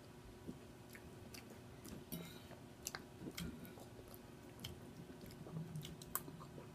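A person chewing food close to the microphone: faint, scattered wet mouth clicks and smacking.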